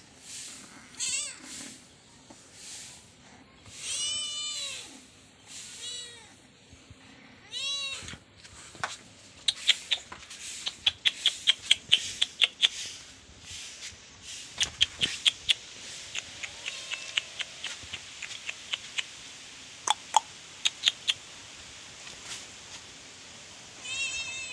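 Kitten meowing again and again, each meow rising and falling in pitch, through the first eight seconds and once more near the end. In between comes a long run of rapid, short high-pitched chirps.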